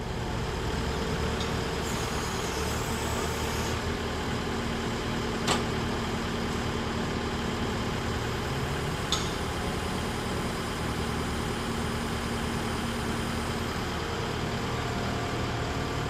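New Holland skid-steer loader's engine running steadily with its lift arms raised. Two short, sharp metallic clanks cut through, about five and nine seconds in, the first the loudest.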